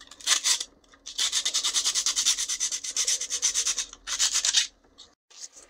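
A small piece of sandpaper rubbed by hand in quick back-and-forth strokes on a 3D-printed plastic part, cleaning up surface marks left by Dremel sparks. A short bout of strokes, then a steady fast run of strokes for about three seconds, then another short bout.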